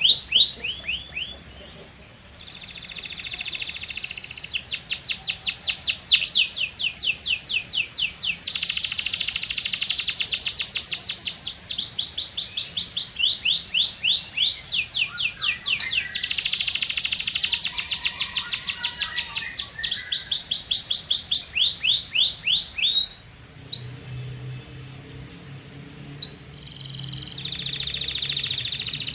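Canary singing: a long song made of rapid trills, each a fast run of the same short high note, switching from one trill to the next. It falls quieter about two seconds in and again a few seconds before the end.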